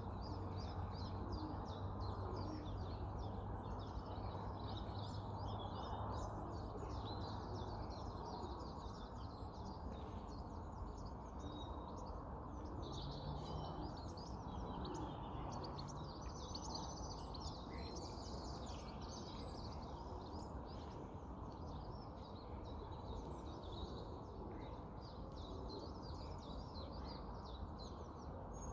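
Several songbirds singing, a steady run of overlapping chirps and trills, over a constant low rumble of outdoor background noise.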